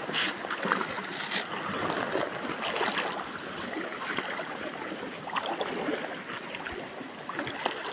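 Stream water rushing steadily, with irregular small splashes.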